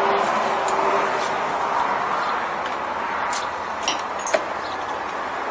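Distant jet airliner engine noise, a broad rushing sound that slowly fades. About four seconds in, a tea glass clinks twice on its saucer.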